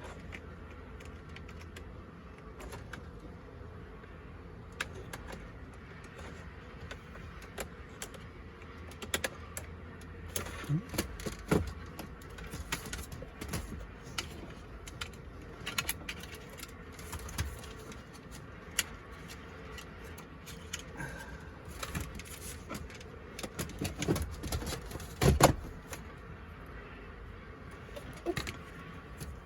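Scattered clicks, taps and knocks of plastic car interior parts being handled, over a steady low hum. The loudest knock comes near the end.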